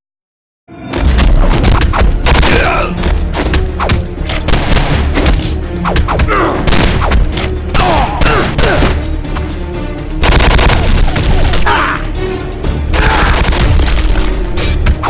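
After a moment of silence, dense gunfire and booming impacts from an animated gunfight, layered over loud, driving background music.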